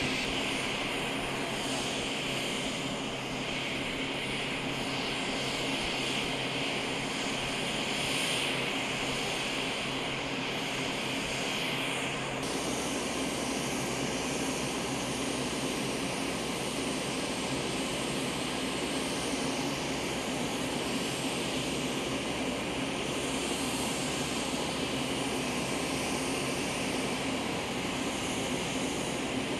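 Steady drone of aircraft engines running, with no pauses. About twelve seconds in, the tone changes and the higher hiss drops away.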